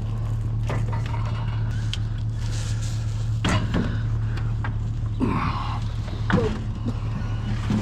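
Truck engine idling with a steady low hum, with a few scattered knocks and clunks over it.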